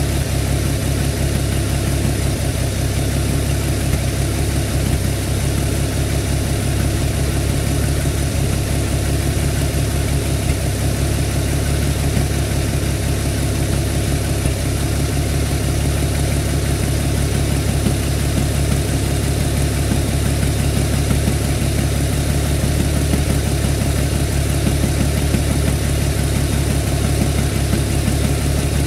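6.9-litre diesel V8 engine idling steadily, with no change in speed.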